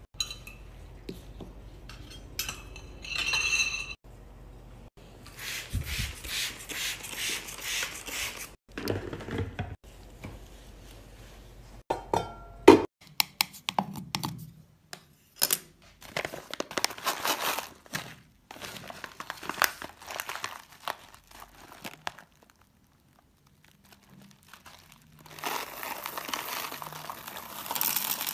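A run of small handling sounds: clinks and taps of a glass jar and a wax pot, light scraping, one sharp knock about halfway. Near the end comes a steady rattling rustle of hard wax beads poured from a plastic bag into a wax warmer pot.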